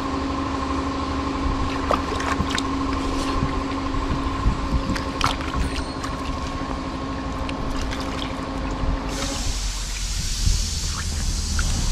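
Water sloshing and dripping as a tractor inner tube is pressed down and turned in a tub of water to check it for leaks, with scattered small splashes. A steady motor hum runs underneath and stops about nine seconds in, giving way to a brighter hiss.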